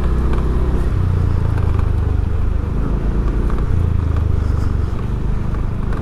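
Motor vehicle engine running steadily at low speed while travelling, its pitch shifting slightly about a second in and again near four seconds.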